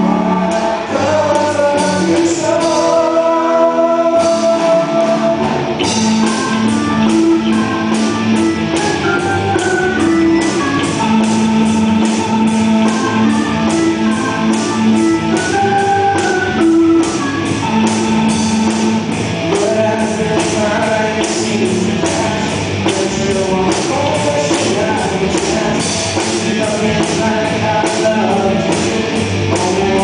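Live rock band playing: guitar with singing, and a steady drum and cymbal beat that kicks in fully about six seconds in.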